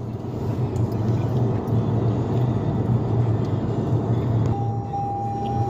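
Steady road and engine noise inside a moving 2021 Toyota Corolla. Near the end a steady high tone starts and holds: the seatbelt reminder sounding because the driver's belt is unbuckled.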